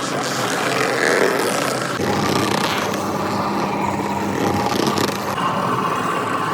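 Oil mill machinery running with a steady mechanical drone and clatter. The sound changes abruptly about two seconds in and again near five seconds.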